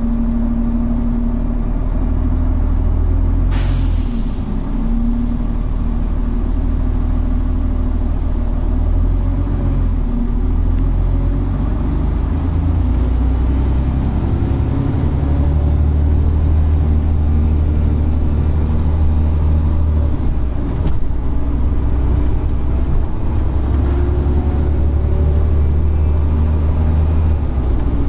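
Volvo Olympian double-decker bus with a Voith automatic gearbox, heard from inside while under way: a steady low engine drone that steps to a new note several times as the gearbox changes gear, with a whine rising towards the end. A short sharp hiss comes about three and a half seconds in.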